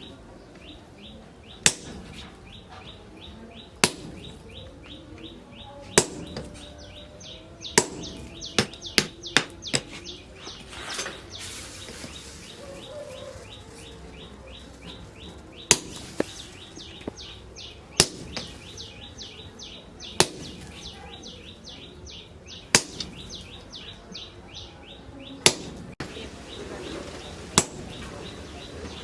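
Single heavy hammer blows on metal, one about every two seconds with a quick run of four blows around the middle, in a blacksmith's axe forging. A fast, even chirping runs behind them at about five pulses a second.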